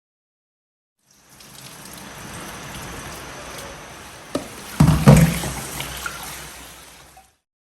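Steady hiss of running water, with a few loud knocks a little past the middle.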